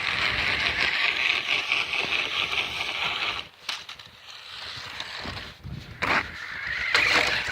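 Remote-control car driving over rough ground: a steady gritty whirr of motor and tyres for about three seconds that then cuts out. A few short knocks follow, and the whirr returns briefly near the end.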